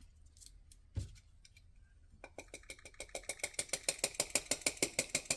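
A single dull thump, then a fast, even mechanical clicking, about seven clicks a second, that starts a little past two seconds in and grows louder.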